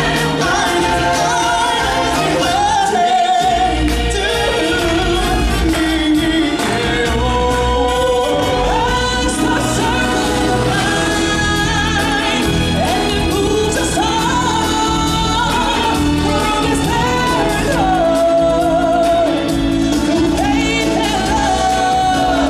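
Stage-show musical number: a choir of singers holding long notes over a full band, with a heavy bass coming in about three and a half seconds in.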